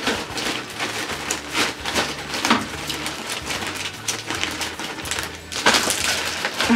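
Thin plastic carrier bag, used as a bin liner, rustling and crinkling in irregular bursts as it is lifted out and handled, loudest near the end.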